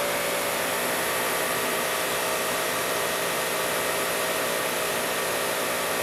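Ryobi 2700psi electric pressure washer running under full pressure with the trigger held: a steady whine from the motor and pump over the hiss of water forced through the 25-degree nozzle, holding about 2,500 PSI.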